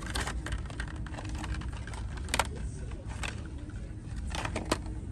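Plastic blister packs of die-cast toy cars clicking and rattling as they are handled and flipped through on store peg hooks: a handful of sharp clicks, the loudest about two and a half seconds in, over a steady low hum of store background.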